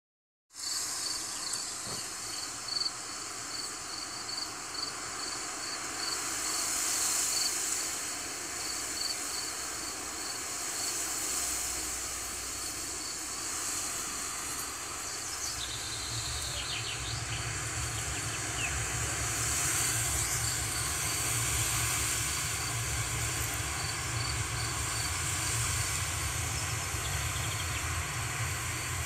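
Wind blowing through grass, a steady rushing hiss, with an insect chirping in an even rhythm of about two chirps a second. About halfway through, a low rumble of wind on the microphone comes in.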